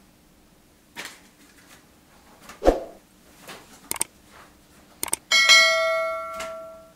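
A few light clicks and knocks and one heavy thump about a third of the way in, then a subscribe-button sound effect: a click followed by a bell ding that rings for about a second and a half and fades away.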